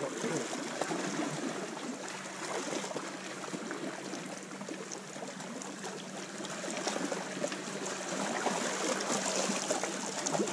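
Sea water washing and trickling around shoreline rocks: a steady, crackling wash with many small ticks.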